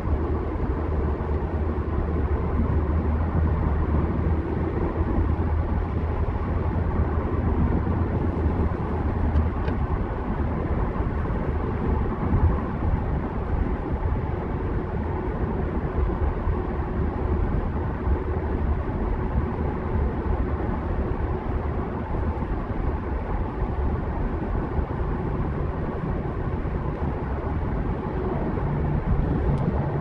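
A car driving at highway speed, heard from inside the cabin: a steady deep rumble of road and tyre noise with engine hum, unchanging throughout.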